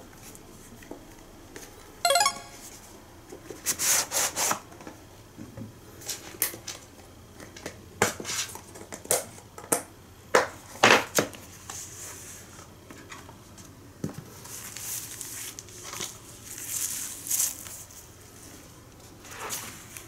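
An N-gauge model train set case being handled and opened by hand: scattered clicks, knocks and rustling of the box and its inner tray, with a short squeak about two seconds in.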